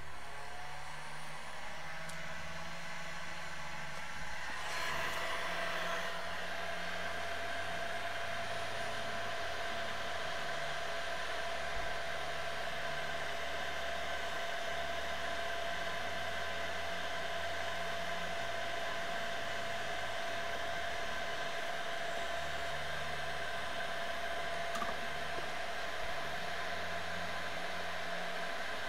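A small electric blower whirring steadily, with a steady whine joining about five seconds in.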